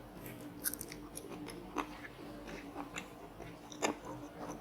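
Close-up eating sounds: a person chewing crunchy battered fried squid, with irregular crisp crunches and mouth clicks, one louder crunch near the end.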